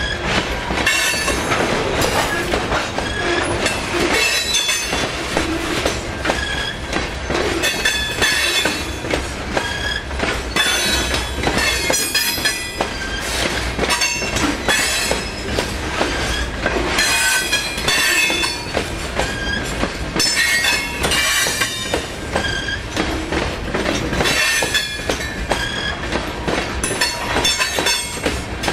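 Freight train cars rolling past close by, with a steady clatter of wheels over the rails and short high wheel squeals coming and going.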